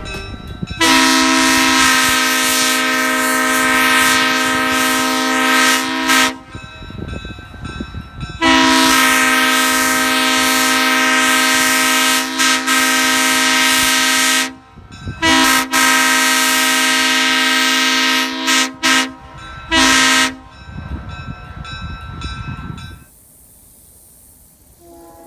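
Leslie S3L Supertyfon three-chime train horn with bronze tabby heads and 25, 31 and 44 square bells, sounding its chord with a strong bark. Two long blasts of about six seconds each come first, then a shorter blast of about three seconds and a few quick toots.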